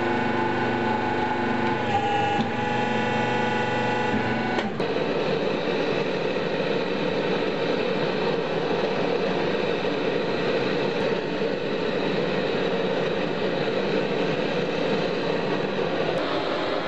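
A hydraulic press's motor and pump hum with several steady tones for the first five seconds or so, then stop abruptly. After that comes the steady rushing noise of the forge fire, which runs on unchanged.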